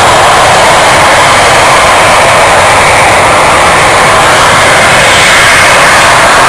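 Jet aircraft engines running, a loud, steady rushing noise with no change in pitch.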